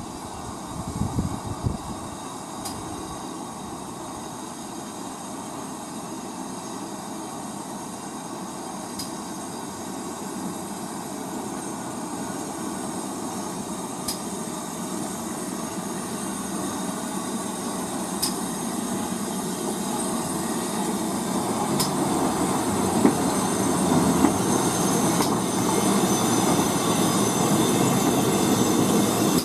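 A train running on the track, its rumble growing steadily louder, with a brief low bump about a second in and faint sharp ticks every few seconds.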